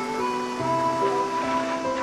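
Background drama score: sustained held notes that shift from chord to chord, with a low bass note entering about halfway through.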